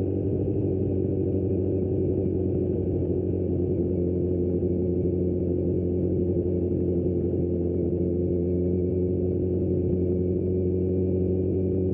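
Kawasaki Z900 SE's inline-four engine running at a steady speed through an aftermarket Austin Racing exhaust, an even drone with no revving.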